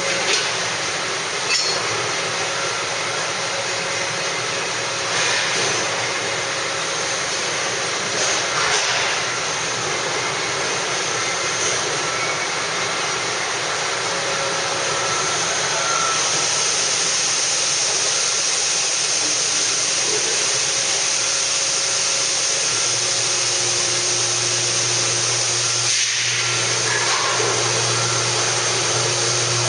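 Steady noise of large factory machinery running: an even hiss that grows stronger about halfway through, with a low steady hum joining it later on.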